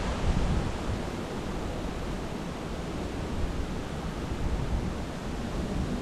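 Strong wind rushing steadily through the trees and over the microphone: an even hiss with low buffeting rumble that eases off about a second in.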